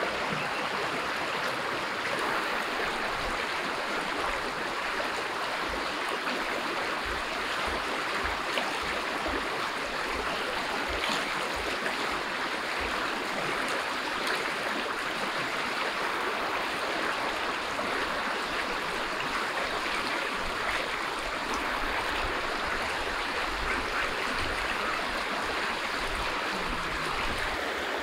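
Fast-flowing river running over rocks and small rapids: a steady, even rush of water.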